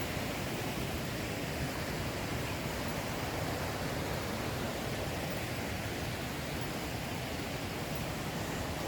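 Rushing water of a mountain creek tumbling over rocks, a steady, even noise that holds level throughout.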